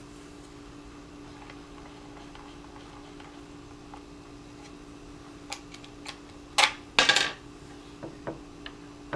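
Small metal parts, a screw and the Allen key, clicking and clattering on a hard work surface: a few light clicks, then two louder clatters a little past halfway, over a faint steady hum.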